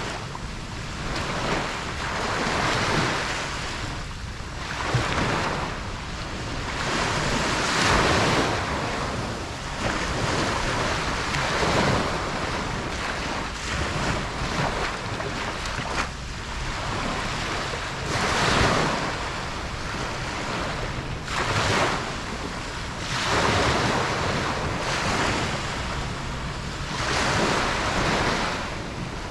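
Ocean waves breaking and washing up on a beach, swelling and fading every few seconds, with some wind noise on the microphone.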